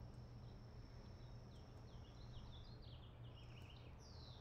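Near silence: low steady room hum with faint, quick bird chirps in the background.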